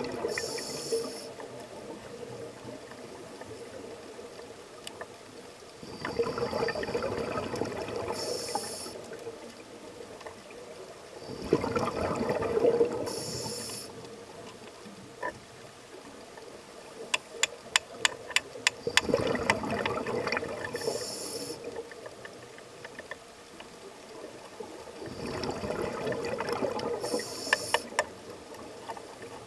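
Scuba breathing underwater through a demand regulator: about five breaths, each a couple of seconds of rushing exhaled bubbles followed by a short hiss. A quick run of sharp clicks comes about halfway through.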